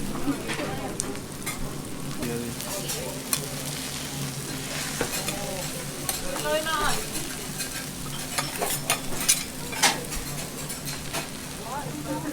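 Okonomiyaki frying on a hot teppan griddle, with sharp clicks and scrapes of metal spatulas over the sizzle and a steady low hum.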